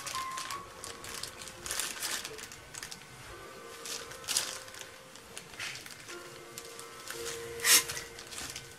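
Soft background music with held notes, over the scraping of a stainless steel bench scraper pushing chocolate tart dough across the countertop and the crinkle of a plastic glove. A few short scrapes stand out, the loudest near the end.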